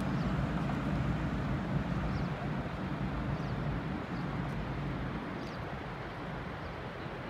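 A road vehicle's engine hum, fading gradually as it moves away over the first few seconds, over a steady outdoor noise.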